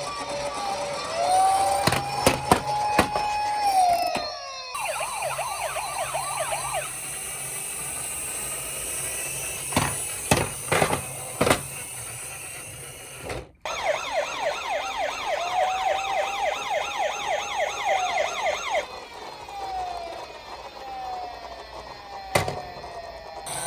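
Electronic toy police-car siren from a minicar, alternating a slow rising-and-falling wail with a fast warbling yelp, and overlapping siren tones now and then. The siren cuts off abruptly twice, and several sharp knocks stand out.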